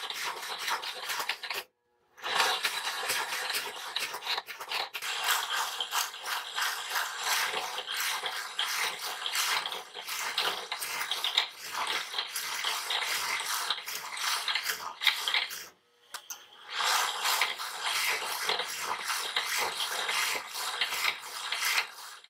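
Homemade power hacksaw driven by a washing machine motor, running with a dense, fast metallic rattle and clatter. The sound cuts out briefly twice, about two seconds in and again near the end.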